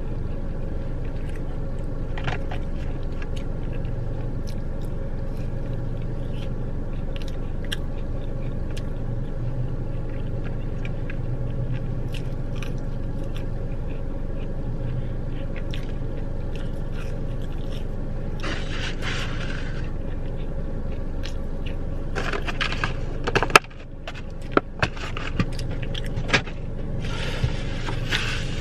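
Steady low hum inside a car, from its idling engine or climate fan. Three short bursts of rustling come in the last third, and a sharp knock about three-quarters of the way through.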